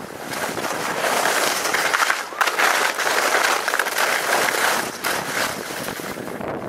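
Edges scraping and carving across hard, icy snow during a fast descent, the hiss swelling and easing with each turn, with wind rushing over the microphone.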